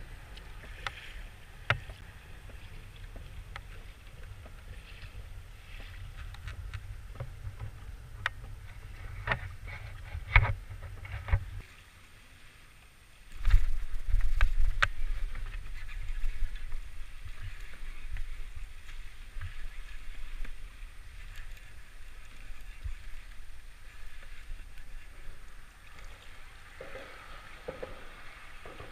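Choppy water lapping and slapping against a plastic kayak's hull, with wind rumbling on the microphone and a few sharp knocks in the first half. After a short lull a little before the middle, the low rumble comes back louder.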